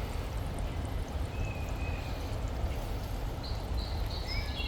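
River water running and pouring steadily, with a low rumble under it. Short high bird chirps come in about a second and a half in and again near the end.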